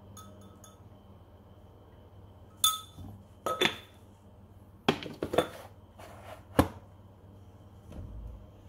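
Spoon clinking against ceramic dishware while black pepper powder is spooned over the salad: about four short clusters of sharp clinks and taps, the loudest near the end.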